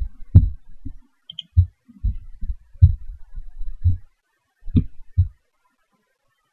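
Irregular low thumps and rumbles, about a dozen of them, stopping a little after five seconds in.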